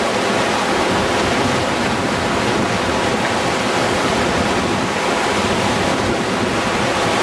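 Class 3 whitewater rapid rushing loudly and steadily, heard from on board a small raft riding through it at water level.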